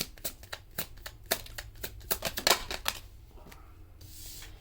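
A deck of tarot cards being shuffled by hand, a quick irregular run of card slaps and riffles that thins out after about three seconds.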